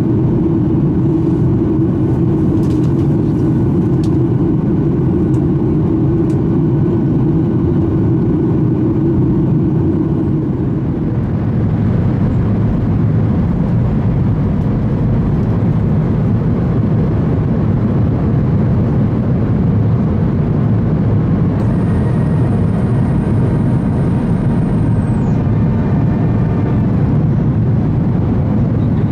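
Boeing 737-800 cabin noise in cruise flight: the steady rush of airflow and the CFM56-7B engines heard from a window seat over the wing. A low droning hum in it drops away about eleven seconds in, and a faint high whistle sounds for a few seconds near the end, falling in pitch as it stops.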